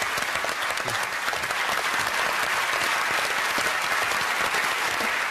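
Studio audience applauding, a dense steady clapping that fades out at the very end.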